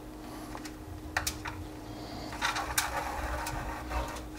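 Plastic filament spool and filament being handled: a few light clicks and short scrapes, loudest about two and a half seconds in, over a faint steady hum.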